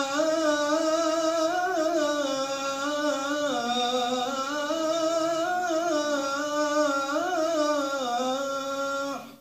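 A muezzin chanting the call to prayer: one long, drawn-out phrase in a man's voice, the pitch winding up and down. It is cut off abruptly near the end.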